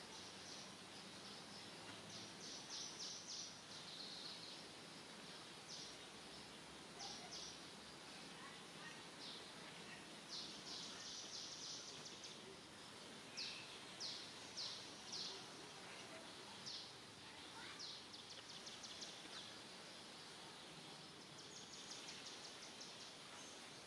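Faint outdoor background with repeated short runs of high-pitched chirps, coming and going several times.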